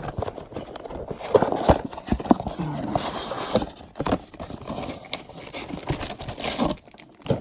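Trading card box being handled and opened: cardboard knocking and scraping, with two bursts of crinkling packaging about three and six seconds in.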